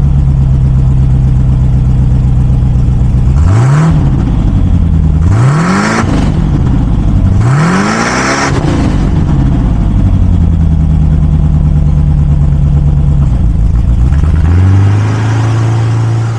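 1951 Buick Special's straight-eight engine idling, blipped up three times in quick succession (each rev rising and falling back to idle) and then idling again. Near the end the car pulls away.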